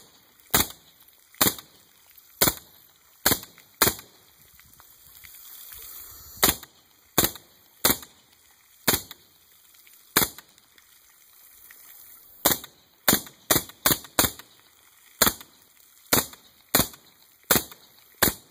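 About twenty suppressed shots from a 9mm AR carbine with a 7.5-inch barrel and an ARMTAC Genesis-9 suppressor, firing 147-grain subsonic rounds. Each shot is a sharp report with a short ring. They come one trigger pull at a time at an uneven pace, with two pauses of a couple of seconds, and are quicker near the end.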